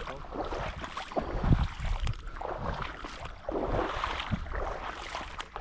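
Wind buffeting the microphone in uneven gusts, over water lapping and sloshing in the shallows.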